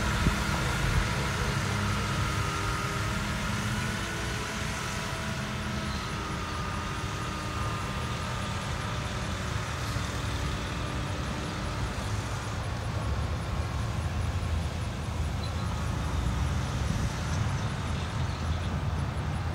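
A vehicle engine idling steadily with a low rumble.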